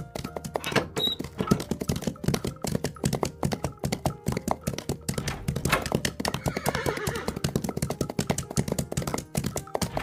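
Horses galloping: a dense, continuous run of hoofbeats, with a horse neighing.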